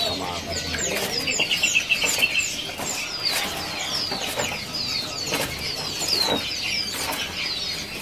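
Many caged small songbirds chirping without pause: a stream of short, high, falling chirps, with a fast trill about a second in and brief wing flutters now and then.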